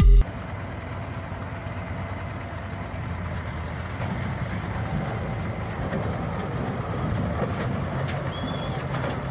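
Engine of a tracked armoured vehicle running and rumbling on a flatbed trailer, growing slowly louder, with a short high squeal near the end.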